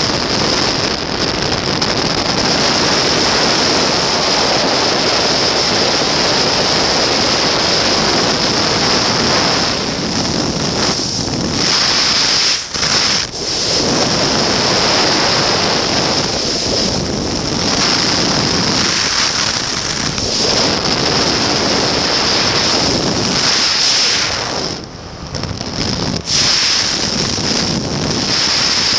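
Loud, steady rushing wind buffeting the microphone of an open-cockpit flexwing microlight trike in flight. It dips briefly twice, about halfway through and near the end.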